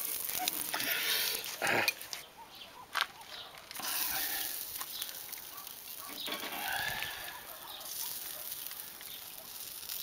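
Bamboo-skewered sausages being laid on the metal grate of a charcoal grill, with a few short knocks. Animal calls, like hens clucking, come from the background a little past the middle.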